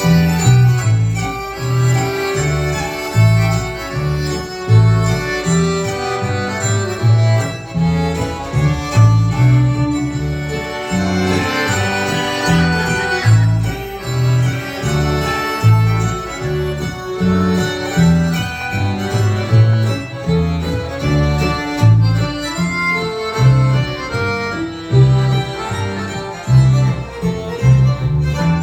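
Old-time dance band playing a reinlender (Norwegian schottische), with a fiddle-led melody over a steady, evenly pulsing bass beat.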